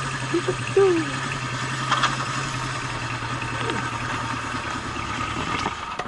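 Honda CB750's air-cooled inline-four engine idling steadily, dying away at the very end.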